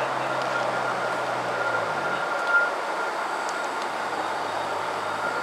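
Live-steam scale-model steam locomotive standing with a steady hiss of steam, while a low hum fades out a little after two seconds in.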